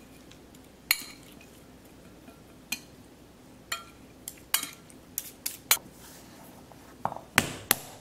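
A metal spoon clinking and scraping against a ceramic bowl while stirring marinated fish, in separate sharp clinks about once a second. The knocks come quicker in the last second.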